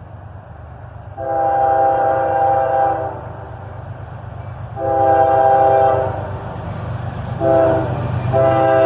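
Multi-chime air horn of a CSX freight locomotive, an ES40DC, sounding the grade-crossing signal: long, long, short, then a last long blast that is still sounding at the end. A steady low rumble of the train runs underneath.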